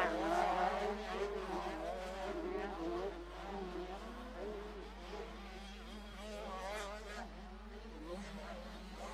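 Several motocross bike engines racing around the track, their pitch rising and falling as the riders open and close the throttle and shift through the corners. Loudest in the first second, then a little quieter.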